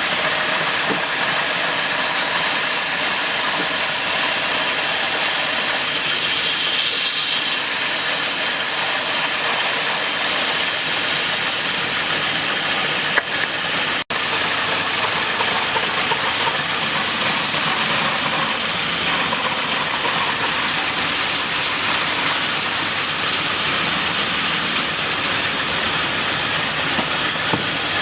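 A woodworking power tool running steadily with a constant rushing noise, with a brief dropout about halfway through.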